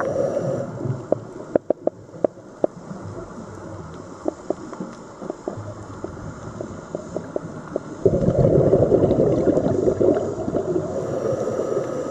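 Underwater sound picked up by a diver's camera: low gurgling with scattered sharp clicks, then, about eight seconds in, a louder bubbling rumble of a scuba diver exhaling through the regulator.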